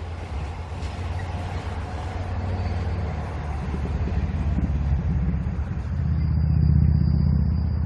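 Low rumble of a cement tank-car freight train rolling away over a concrete viaduct, growing heavier and louder about six to seven seconds in.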